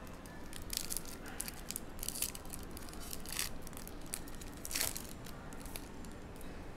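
Foil trading-card pack wrapper crinkling and tearing as it is peeled open by hand: a run of crackles, the loudest about three and a half and five seconds in.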